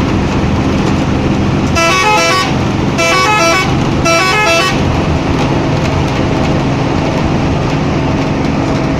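Bus telolet horn playing three short bursts of a quick multi-note tune, each about half a second long, over the steady drone of a bus engine.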